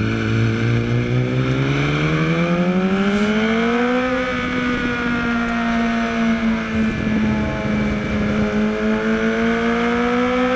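2013 BMW HP4's inline-four engine heard onboard, accelerating hard out of a slow corner. Its pitch climbs steadily for about four seconds, from around 3,400 rpm to about 7,000 rpm, then holds high and fairly steady, sagging slightly and rising again near the end.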